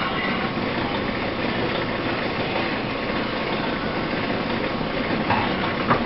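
Century-old Gray metal planer running under power, its tool taking a cutting pass across the work: a steady mechanical clatter of the driven table and drive. Two sharper knocks come close together near the end.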